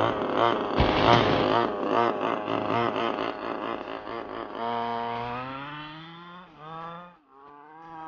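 The 30cc two-stroke gas engine of a 1/5-scale RC buggy, fitted with a tuned pipe, revving in loud uneven pulses as it pulls away, then settling into a steadier, quieter tone that slowly rises in pitch as the buggy drives off into the distance. The engine is still being broken in and runs rich.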